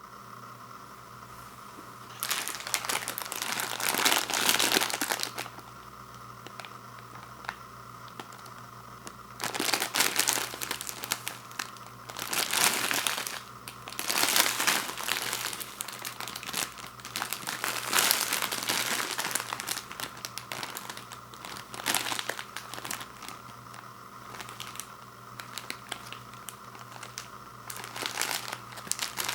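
Plastic wrapper of an instant ramen packet crinkling as it is handled, in irregular bursts of one to three seconds, over a faint steady hum.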